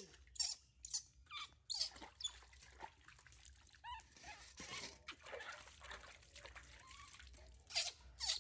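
Baby monkey letting out short, high-pitched squeaks and a few cries while being bathed, with water splashing and dripping into a steel basin in between.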